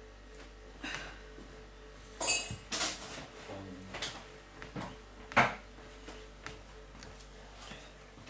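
Handling noises: a few short bursts of paper rustling and light knocks as a paper-wrapped loaf of soap is brought over and the wooden wire soap cutter is handled. The loudest is a crinkly rustle about two to three seconds in.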